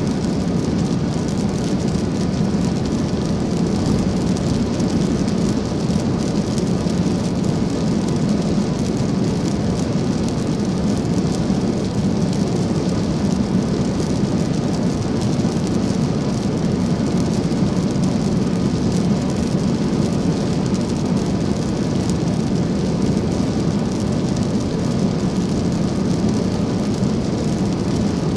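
Steady road noise of a car driving at highway speed in the rain, heard from inside the car: tyres hissing on wet pavement over a low engine and road rumble.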